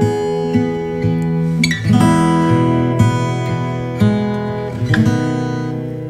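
Background music: acoustic guitar strumming chords, with a new chord struck about once a second.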